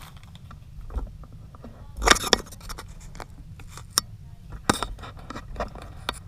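Packaging and a football jersey being handled: a series of short rustles, scrapes and clicks, loudest about two seconds in.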